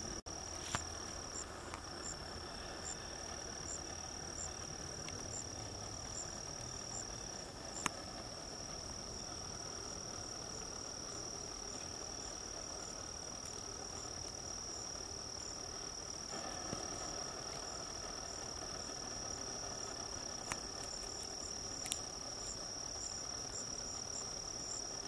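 Crickets trilling steadily in one high unbroken tone, with a few faint, sharp clicks.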